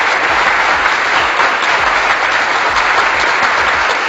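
Applause sound effect: dense, even crowd clapping, laid over the catch with a sudden start and a sudden cut-off.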